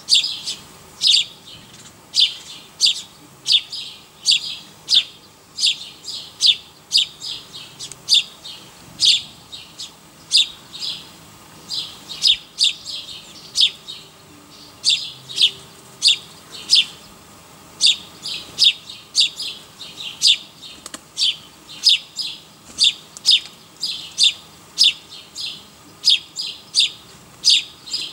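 A small bird chirping over and over, short high calls at roughly two a second, sometimes in quick pairs.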